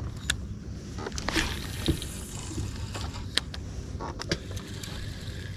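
Water lapping and splashing against a fishing boat's hull over a low steady rumble, with a handful of sharp clicks and taps scattered through.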